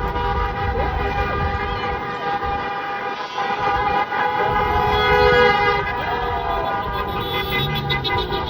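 Several car horns honking at once in long, overlapping, unbroken blasts, in celebration.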